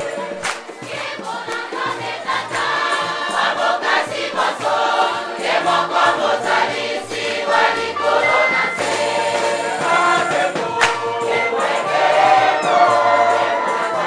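A church congregation singing together, many voices at once, over a steady beat of sharp percussive strikes.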